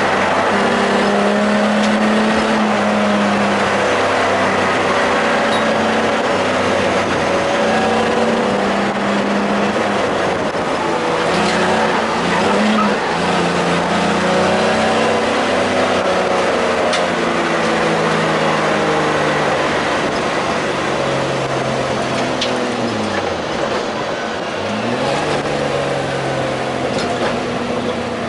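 Race car engine heard from inside the cockpit at speed, its pitch climbing and breaking off again and again as it accelerates, shifts and slows for corners, with a deep drop and climb about three quarters of the way through. Steady road and wind noise runs underneath.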